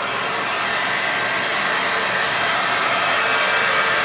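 Handheld hair dryer running steadily, a constant rush of air, blow-drying a wet puppy's coat.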